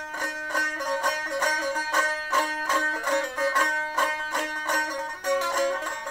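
Background music: a fast tune of quickly plucked notes on a plucked string instrument, in a traditional style, with little bass.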